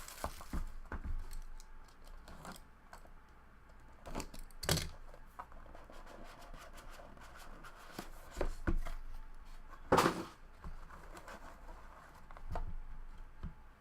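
Opening and handling a sealed trading-card box: scattered scraping, tearing and light clicking of cardboard and plastic, with a few louder sharp knocks about five and ten seconds in.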